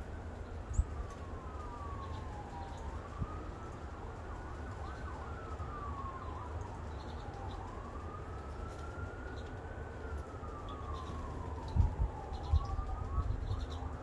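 An emergency-vehicle siren wailing, its pitch slowly rising and falling about once every five seconds. Faint bird chirps and a low rumble run under it, with a few low thumps near the end.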